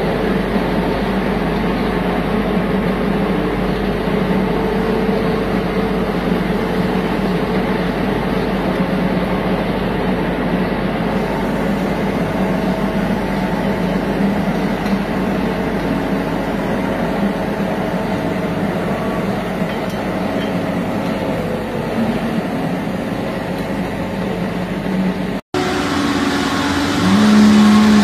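Feed mixer truck running and unloading feed through its side discharge conveyor: a steady mechanical drone with a low hum. It cuts off abruptly near the end and gives way to a different, steadier noise with a short, louder low tone.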